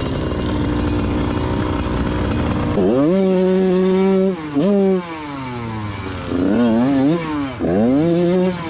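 TM Racing 100MX two-stroke minicross engine revved hard several times, held high for about a second at a time and dropping back between, with the clutch slipped to work the stuck bike free.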